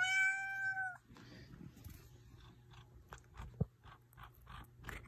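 Ragdoll cat giving one clear, steady-pitched meow about a second long, then faint irregular clicks and rustling as her fur brushes against the phone.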